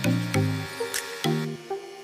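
Background music: short low pitched notes changing about every half second over a steady beat with sharp high ticks.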